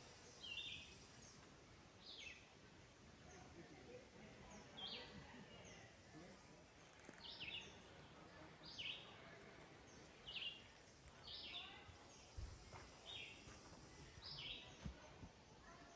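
Faint background hiss with a small bird giving short, falling chirps every second or two. Two soft low thumps come near the end.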